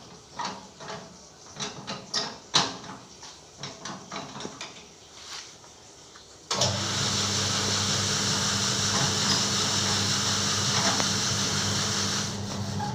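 Scattered knocks and clatter, then about six and a half seconds in an electric carpet-washing machine switches on abruptly and runs steadily with a low hum and a hiss.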